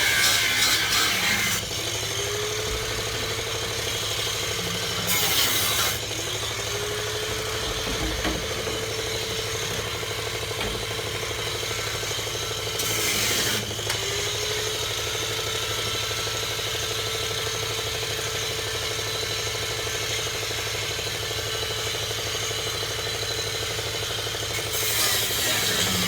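A handheld power tool running in three long stretches, each starting with a rising whine, holding a steady speed and ending with a falling one, with short louder harsh noise between the stretches. The tool is being used to cut and drill the welded floor sheet metal off a car's frame rails.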